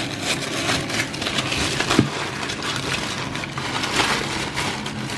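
Plastic wrapping crinkling and rustling as hands peel and pull it open, with one sharp click about two seconds in.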